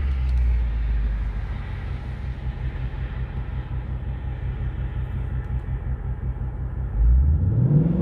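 2020 Ford Mustang GT's 5.0-litre V8 with the active exhaust set to Sport mode, idling steadily, then revved up sharply about seven seconds in.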